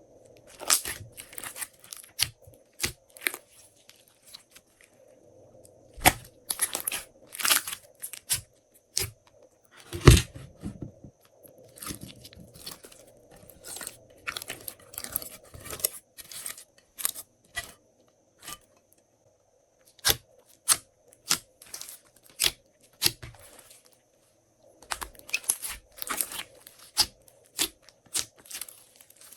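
Hands squishing and kneading glossy slime, making irregular sharp clicks and pops in clusters, with a pause of about two seconds past the middle.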